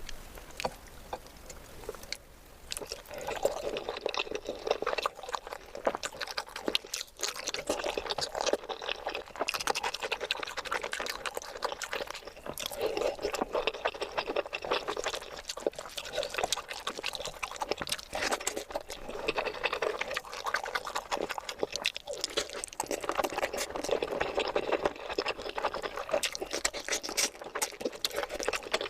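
Close-miked wet, squelchy eating sounds from a curry and rice meal: a dense run of small clicks and smacks that swells and eases every few seconds, getting louder a couple of seconds in.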